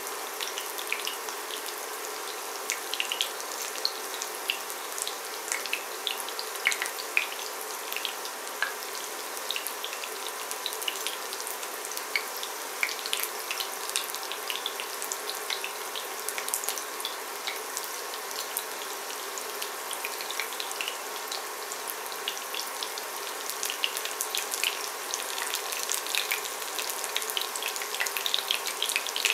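Breaded chicken nuggets shallow-frying in vegetable oil in a ceramic pan: a steady sizzle with frequent small crackles and pops, which grow busier near the end.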